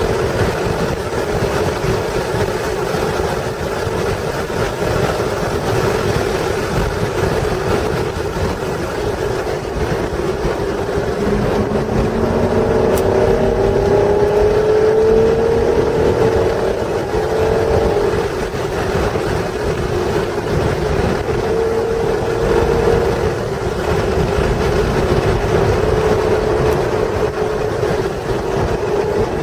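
Acura NSX's 3.0-litre V6 running hard on track. The engine note repeatedly climbs and drops back under a steady rush of wind and tyre noise.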